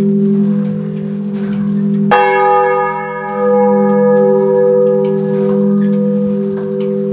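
Causard-cast bronze church bells (a four-bell peal tuned F, A-flat, B-flat, C) ringing close up in the belfry. Low humming tones carry on throughout, and about two seconds in a clapper strikes, ringing out bright overtones that fade within about a second.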